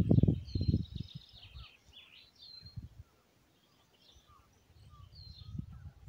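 Small birds chirping and whistling in short phrases, with low gusts of wind buffeting the microphone in the first second and again near the end, and a quiet lull in between.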